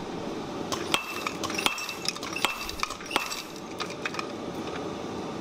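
Steel tongs and a hot copper-nickel billet clinking on an anvil face as the billet is positioned. Four sharper clinks come a little under a second apart, each with a brief ring, with lighter taps between; they stop about four seconds in.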